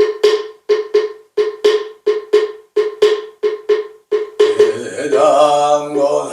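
A moktak (Buddhist wooden fish) is struck in a steady rapid beat, about three hollow knocks a second, for about four seconds. Then a man's voice comes in with a long, held chant.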